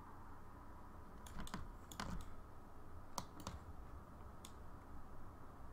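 About six sparse, faint clicks of computer keys being pressed, over a steady low hum.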